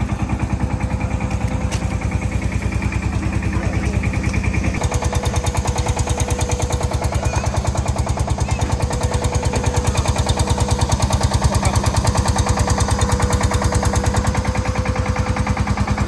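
An engine running at idle with a fast, even chugging pulse, getting a little brighter and harsher about five seconds in.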